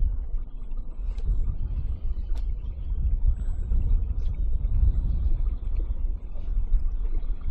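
Wind buffeting the microphone: an uneven low rumble that swells and drops, with a few faint ticks.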